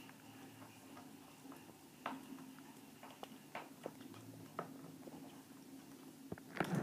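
Ferret chewing a chicken neck: irregular sharp crunches and clicks of bone, louder near the end, over a faint steady hum.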